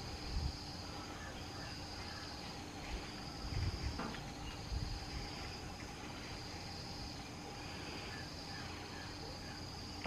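Insect chorus of cicadas or crickets: a high, steady trill that swells and fades in long pulses, every second or two. Beneath it are a faint low hum and a few soft low thumps.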